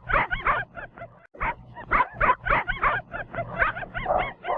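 A quick run of short, high barks, about three or four a second, with a brief pause just over a second in.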